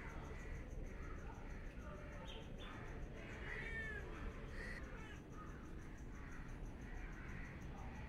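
Domestic cat meowing once about halfway through, a short call that rises and falls in pitch.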